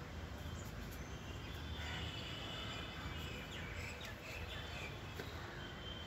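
Jungle babblers calling: a cluster of short, high calls from about two to four seconds in, with a few fainter calls later, over a steady low background hum.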